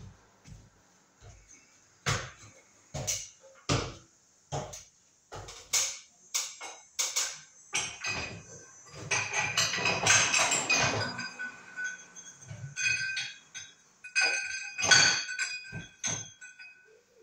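Hard parts and tools being handled on a ceiling fan: a string of separate sharp knocks and taps, then a denser clattering stretch about halfway through with ringing clinks, and a few more clinks near the end.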